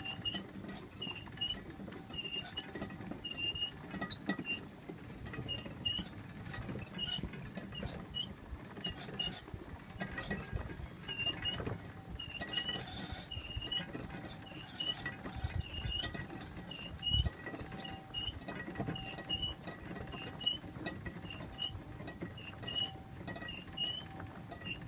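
Rope-hauled haulage-way trolley climbing its rails, heard as a low rumble, with short high-pitched chirps about once a second and a steady high whine over it.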